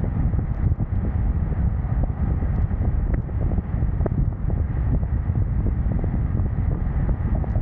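Wind buffeting the microphone of a camera on the move: a steady, uneven low rumble.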